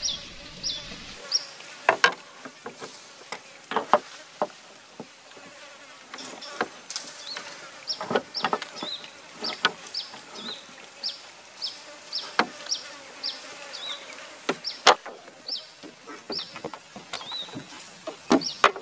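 An animal chirping: a short, high, falling chirp repeated about twice a second over a faint steady hum. Scattered sharp clicks and knocks are louder than the chirps.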